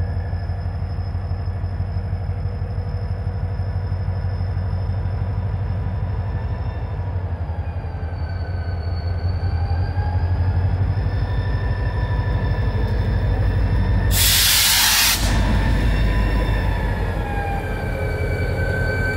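Diesel locomotive running with a low, pulsing engine rumble and thin high whining tones that waver slowly in pitch. About fourteen seconds in comes a loud burst of air hiss lasting about a second.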